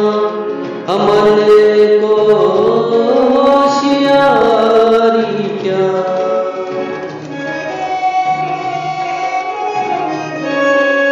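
Devotional song: a voice singing gliding, ornamented phrases over instrumental accompaniment, giving way to steadier held notes in the second half.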